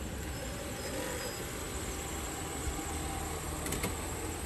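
Ram ProMaster cargo van's engine running as the van rolls in slowly, a steady low rumble. Two sharp clicks near the end.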